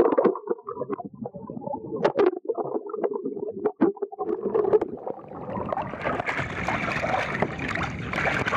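Seawater sloshing around a microphone that is under the surface. For about the first five seconds the sound is muffled and gurgling, with scattered knocks. Then it opens into a steady hiss of splashing water and wind as the microphone comes out at the boat's side.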